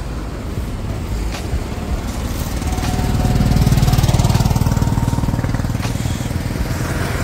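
A motor vehicle's engine running with an even low pulse. It grows louder about three seconds in, then eases off a little.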